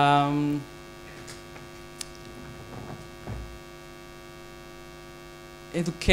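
Steady electrical mains hum with many buzzy overtones. A louder steady held tone sounds for the first half-second, then the hum runs on alone.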